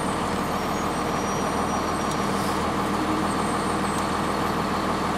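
Cummins ISC straight-six diesel in a Blue Bird CS transit bus running steadily, heard from inside the bus as an even low engine hum with cabin noise.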